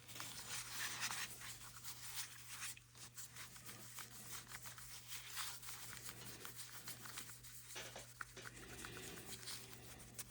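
Faint, irregular rubbing of a microfiber cloth polishing a metal Zippo lighter case.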